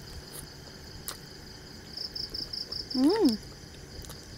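Crickets chirping in a high, fast pulsed trill. About three seconds in, a short 'mmm' hum rises and falls in pitch from the woman chewing a mouthful of burger.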